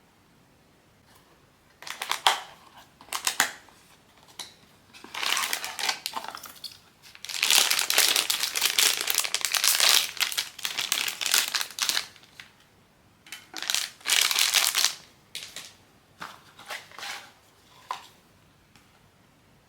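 Crinkly packaging wrapper being handled and pulled open by hand during a blind-box unboxing, in irregular spurts of crinkling with a longer, steadier stretch in the middle.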